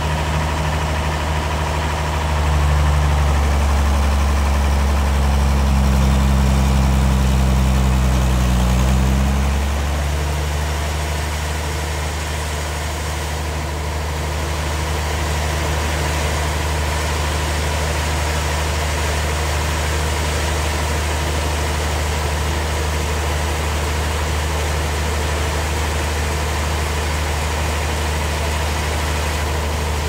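Stationary engine driving a sawmill bandsaw, running steadily. It is louder and its note shifts from about two seconds in, then about ten seconds in it drops back to an even run.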